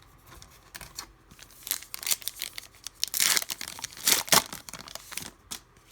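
A trading card pack's wrapper being torn open and crinkled: a run of ripping and crackling, loudest around the middle.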